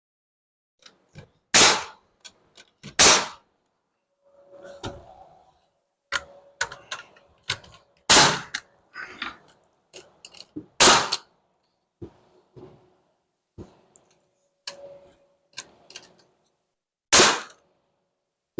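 Nails being driven into wooden wall framing: five loud, sharp shots a few seconds apart, with lighter knocks and handling noises between them.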